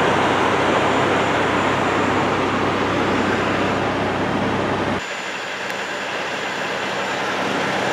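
Steady engine hum and road noise inside the cab of a semi-truck moving through city traffic. About five seconds in, the deep hum drops out suddenly, leaving lighter road noise.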